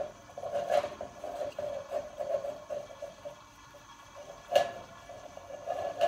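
Paintbrush strokes scraping over the ribbed side of a metal tin can, an irregular scratchy rasping in two long runs, with a sharp knock just under a second in and a louder one about four and a half seconds in.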